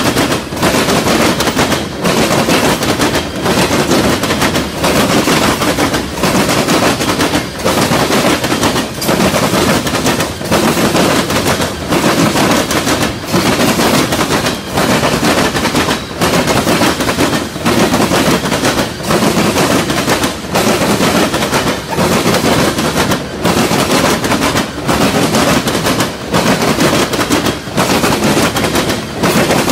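Freight train of covered hopper cars rolling past close by, its steel wheels clattering on the rails in a loud, rapid, unbroken rattle. The noise dips briefly about every second and a half.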